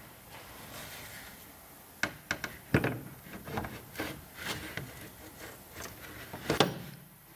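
A run of irregular sharp clicks and light knocks from hard computer parts being handled and fitted together. It starts about two seconds in, and the loudest knock comes near the end.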